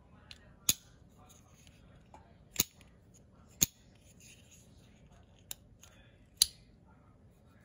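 Spyderco Urban slipjoint folding knife being flicked open and shut by hand: four sharp snaps of the blade against its backspring, spread irregularly, with a few softer clicks and faint handling rustle between.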